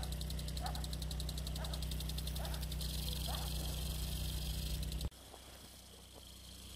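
Field sprinklers (AJ-TS6001) spraying irrigation water: a steady hiss with a fast, even ticking, over a low steady hum. The sound drops sharply and becomes quieter about five seconds in.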